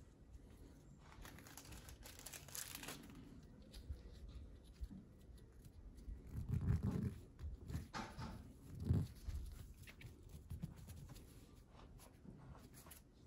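Handling noise at a workbench: rustling and crinkling with scattered light clicks, and two dull knocks about seven and nine seconds in.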